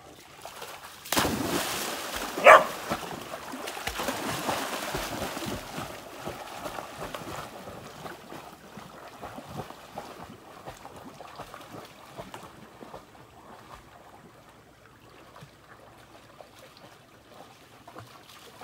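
A dog plunging into a muddy creek and swimming, with heavy splashing that starts suddenly about a second in and slowly dies away to faint water sounds. About two and a half seconds in, one short, very loud bark rises over the splashing.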